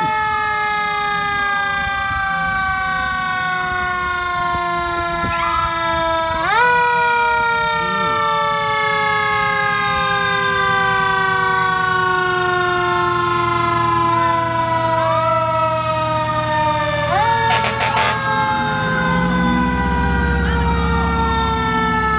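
Fire engine siren wailing: its pitch winds slowly down for several seconds, then sweeps quickly back up, twice, with a second siren faintly rising and falling beneath it. A brief cluster of sharp clicks comes just after the second rise. Near the end, a heavy truck engine's low rumble grows as the fire truck passes.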